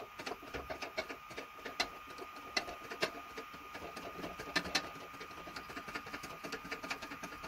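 Wheel bearing being pressed out of a steering knuckle: a faint steady whine with many small irregular metal clicks and ticks.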